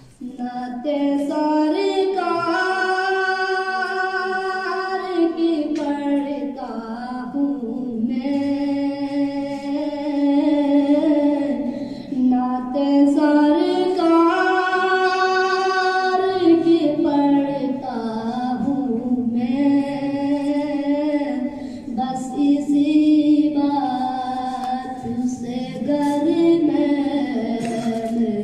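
A boy's voice singing a naat solo and unaccompanied, in long, drawn-out phrases that bend in pitch, with short breaks for breath between them.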